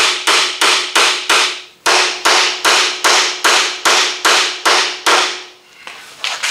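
Hammer blows on a tool held against the head of a car door hinge pin, about three strikes a second, with a brief pause near two seconds in and stopping shortly before the end. The pin is being knocked loose in its hinge.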